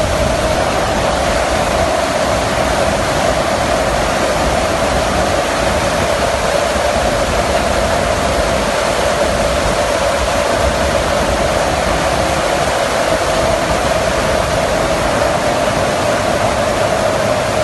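Steady rush of wind and engine drone on the open rear cargo ramp of a military transport aircraft in flight, with a constant mid-pitched hum running through it.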